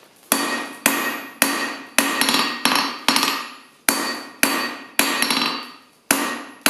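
Hand hammer striking a hot steel bar on the anvil face, about two blows a second, each with a brief metallic ring, with a short pause past the middle. The smith is drawing a four-sided taper on the bar to form a centre punch.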